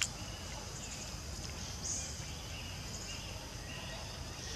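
Forest ambience: a steady high drone of insects, with short faint chirps over a low background rumble.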